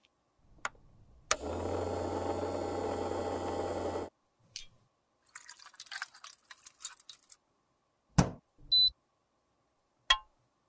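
A small electric appliance holding lipstick tubes is switched on with a click and buzzes steadily with a low hum for under three seconds before stopping. Then alcohol is poured and splashes into a stainless-steel tray. Near the end comes a knock, a short electronic beep, and a glass click as a beaker is set down on an electric hot plate.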